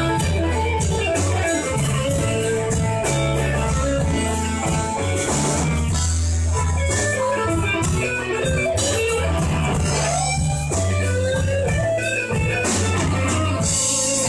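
Slow blues played by a band, a guitar playing melodic lines over sustained bass notes.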